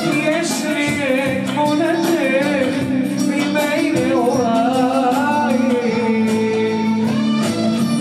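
Male vocalist singing live into a handheld microphone, his melody winding up and down in ornamented runs, over loud amplified backing music.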